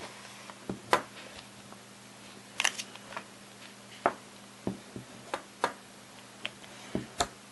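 A dozen or so sharp clicks and knocks at irregular spacing as an Olympus OM10 film SLR with its back open and a 35 mm film canister are handled and set down on a table.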